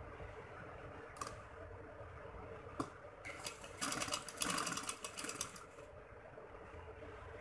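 Domestic sewing machine stitching in a short run: a rapid clatter of needle strokes for about two and a half seconds in the middle, with a couple of single clicks before it.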